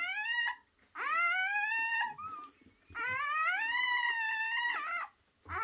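Newborn puppies crying while nursing: long high-pitched squealing whines that rise in pitch and then hold, wavering. There are three drawn-out cries, with a fourth starting right at the end.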